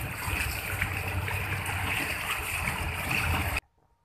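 Water rushing and splashing along the hull of a moving motorboat, over the steady low hum of its engine. The sound cuts off suddenly about three and a half seconds in.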